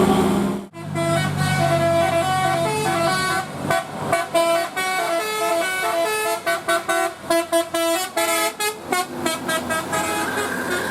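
Bus 'telolet' multi-tone musical horn playing a tune of stepping notes, with quick staccato toots in the second half. A bus engine runs underneath and is heard alone near the end.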